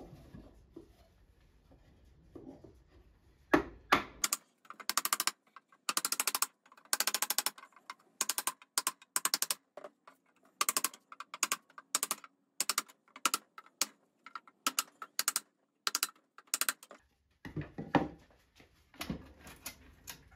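Mallet blows on a piece of wood held against a cast-iron school desk's seat hinge: a long run of quick, sharp knocks, some single and some in rapid clusters, starting about three and a half seconds in and lasting about thirteen seconds. The seat is being driven loose because the hinge was painted stuck to the frame in an earlier refinish.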